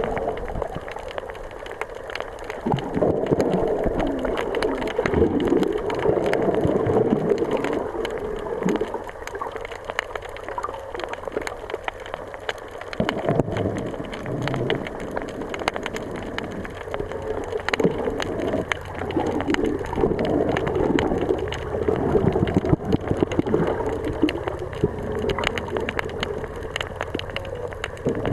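Sea water washing and gurgling over a sand and stone shore, swelling and ebbing every few seconds, with a steady crackle of small clicks.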